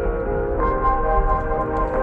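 Background music: slow ambient music with held, bell-like chords that change to a new chord about half a second in.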